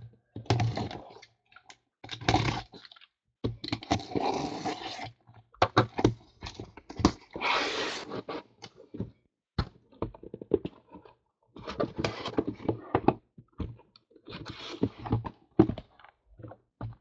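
Cardboard shipping case being cut open with a box cutter along its taped seam, then its flaps opened and the sealed card boxes inside handled and slid out: a string of knocks and thuds with a few longer rasping scrapes of knife, tape and cardboard.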